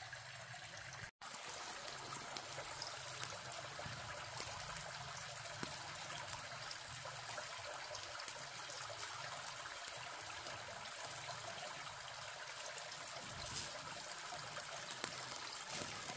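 Small creek trickling steadily, with a few faint ticks.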